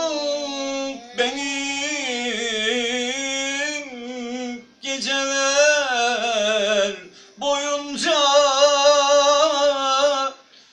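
A man singing unaccompanied: four long, drawn-out phrases of wavering, ornamented held notes, each breaking off before the next begins.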